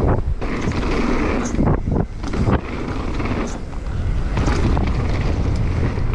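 Wind buffeting the microphone of a mountain bike's point-of-view camera as it descends a dirt trail, over a steady rumble of tyres and bike, with a handful of sharp knocks and rattles from the bike over the rough ground.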